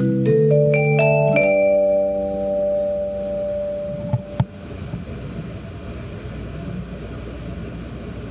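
Tokaido Shinkansen in-car announcement chime: a short melody of bell-like mallet notes that rings out and fades about two seconds in, the signal before an announcement begins. After it comes a steady low hum, with two short clicks near the middle.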